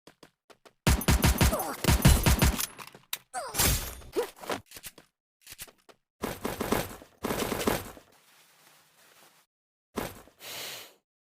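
A run of short, abruptly cut sound effects: a rapid burst of sharp bangs about a second in, a quick sliding pitch, then further separate noisy bursts and a brief hiss near the end.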